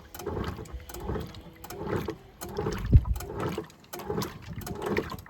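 Homemaker 7 kg top-loading agitator washing machine on its gentle action: the agitator swishes back and forth in short strokes, sloshing the water and clothes in surges about once a second. There is a low thump about three seconds in.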